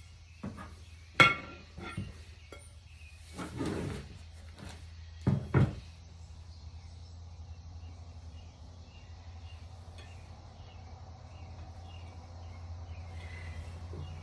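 Glass pieces being handled and set down on a work surface: a few knocks and clinks, the loudest a sharp ringing clink about a second in, then quieter handling. A steady low hum runs underneath.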